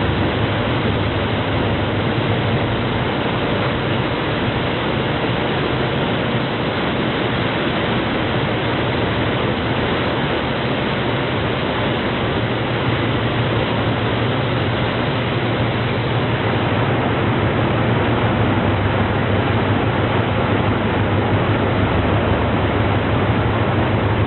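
Boeing Jetfoil hydrofoil running foilborne at speed: a steady rushing noise of its gas turbines and water jets with a low hum underneath, getting a little louder in the last third.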